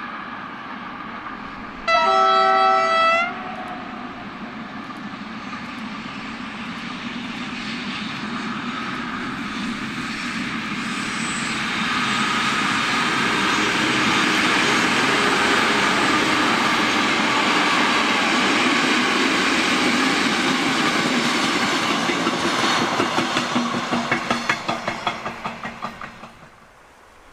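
DR class 118 (V 180) diesel locomotive sounds its horn once for about a second, then grows louder as it approaches and passes hauling a train of coaches. Near the end the wheels clatter rhythmically over the rail joints as the last coaches go by, and the sound fades away.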